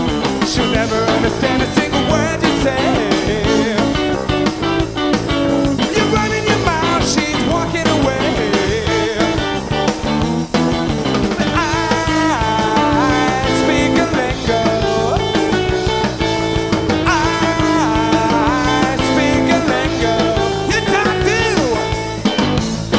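A rock band playing live, with guitar over bass and drums; a lead line with bending, gliding pitches comes through in the second half.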